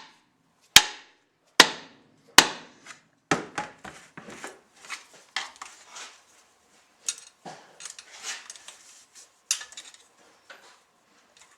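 A gear in a floor-sander orbital attachment tapped back on its shaft with four sharp metal knocks a little under a second apart, to loosen a tight spiral retaining clip. This is followed by lighter metal clicks and scraping as a small screwdriver and pick work at the clip.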